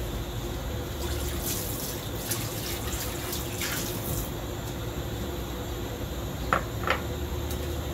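Water running from a kitchen tap for about three seconds. Near the end, two quick metallic clinks, a metal ladle tapping the steel soup pot, sound over a steady low kitchen hum.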